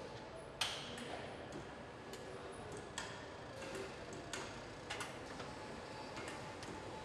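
Car assembly-line work sounds: scattered sharp clicks and light clanks of parts and hand tools being handled, the loudest about half a second in, over a faint steady factory background.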